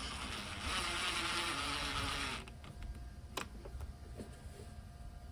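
Small cordless power tool spinning for about two and a half seconds, running a 7 mm fastener down, its pitch sinking as it tightens, then it stops; a sharp click follows about a second later.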